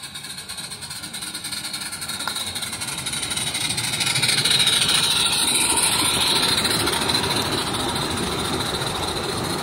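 A 16mm-scale live-steam model of the narrow-gauge locomotive Countess running past close by, its fast exhaust beat and wheels clattering on the track growing louder as it approaches, loudest as it passes about four to six seconds in. A long train of model freight wagons then keeps rolling by with a steady clatter.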